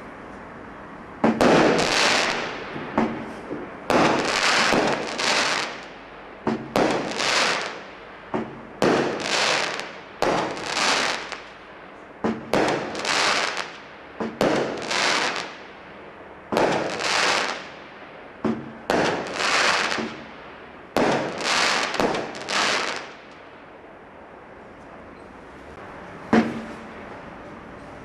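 A firework barrage from a Standard Fireworks Daredevil Barrage Pack firing shot after shot, about one every one to two seconds. Each shot is a sharp report followed by about a second of hissing noise. The shots pause briefly near the end, then one more fires.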